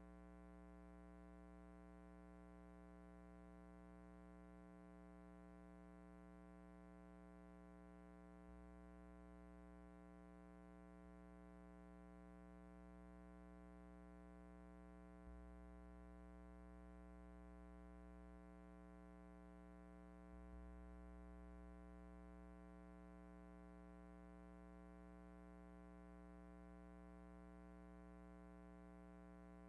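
Near silence with only a faint, steady electrical hum and low rumble.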